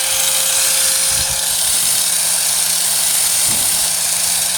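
A 4-1/2 in. angle grinder with a thin cutting disc running steadily at over 13,500 RPM, cutting through the rusted sheet steel of a truck tailgate: a constant whine over a hiss of abrasive cutting.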